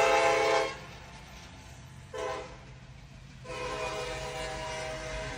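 A horn sounding with steady, flat, chord-like tones: a long loud blast that stops just under a second in, a short blast about two seconds in, and a longer, quieter blast from about three and a half seconds in.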